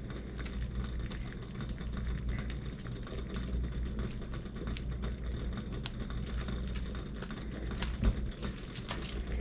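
Stainless pot of water at a rolling boil on an electric stovetop: steady bubbling with a dense fine crackle, over a low steady hum. A small knock near the end.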